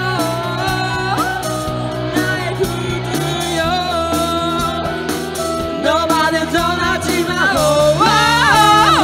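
Live band playing a pop-rock song with sung vocals over electric guitars, bass guitar and drums, getting a little louder near the end.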